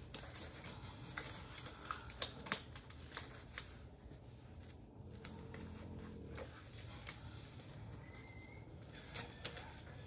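Disposable exam gloves being pulled onto both hands: faint rustling and crinkling, with a run of small sharp snaps in the first few seconds and a couple more near the end.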